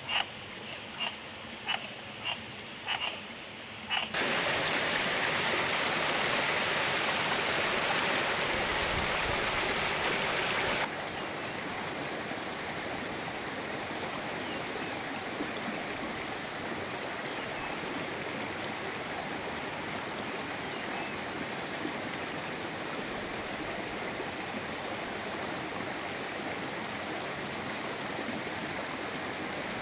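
A frog croaks about six times, roughly every half second, over running water. A few seconds in, a louder rush of flowing water takes over and then drops abruptly to a steady stream sound for the rest.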